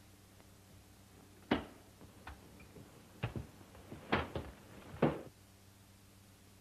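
About five sharp knocks over a few seconds, irregularly spaced and some of them doubled, the first and last the loudest, over a faint steady hum.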